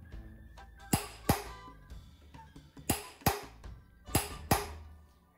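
Three pairs of sharp knocks with a short ring, each pair about a third of a second apart, over quiet background music.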